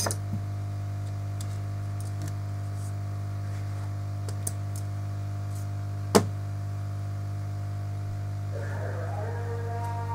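Small sharp clicks and taps of hand tools on an iPhone 5s during a charging repair, with one loud click about six seconds in, over a steady low electrical hum.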